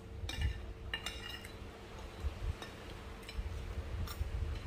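Cutlery clinking against plates a few times, each strike ringing briefly, over a low rumble.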